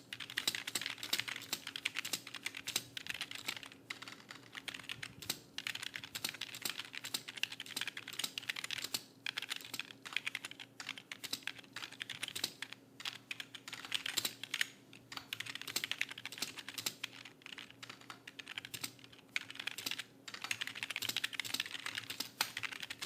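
Fast, continuous typing on a computer keyboard during a speed-typing test, at around 66 words per minute, with a few brief pauses between bursts of keystrokes. It stops abruptly at the end.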